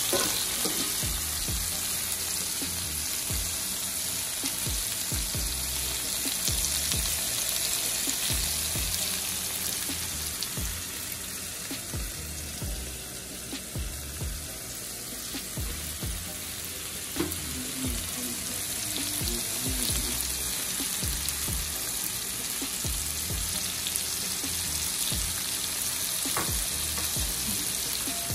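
Shrimp, salmon, mushrooms and broccoli sizzling in a hot pot with garlic: a steady frying hiss, with a few clinks of a utensil stirring against the pot.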